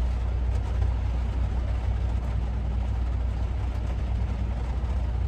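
Semi-truck diesel engine running at low speed, a steady low rumble heard from inside a truck cab.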